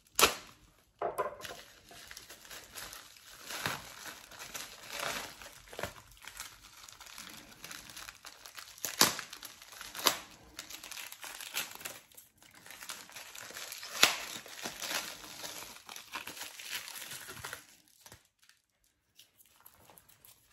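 A small shipping package being cut open with scissors and its wrapping crinkled and torn off by hand: a long run of crackling rustles with a few sharper snaps, stopping about three seconds before the end.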